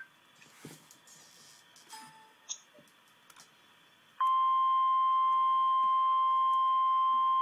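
NOAA Weather Radio warning alarm tone, a single steady beep of about 1050 Hz. It starts suddenly about four seconds in, after near silence broken by a few faint clicks. It signals that a severe thunderstorm warning is about to be read.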